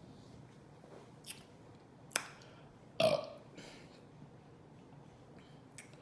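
A woman burping from the gas of the carbonated Sprite lemonade soda she has been drinking. One short burp about halfway through is the loudest sound, with a smaller sharp sound about a second before it.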